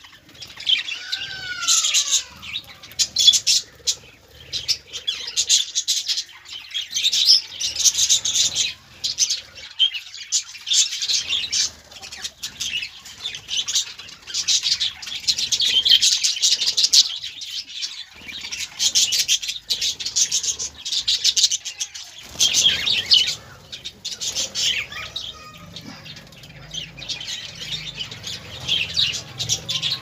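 Caged budgerigars chattering, a steady run of quick high chirps and warbles.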